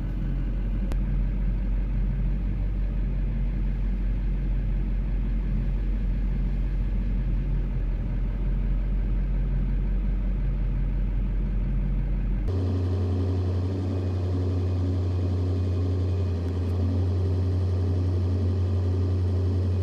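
Diesel engines running steadily, heard from inside a pickup's cab while a wheel loader works at the truck's bed. About twelve seconds in, the hum changes abruptly to a higher, stronger tone.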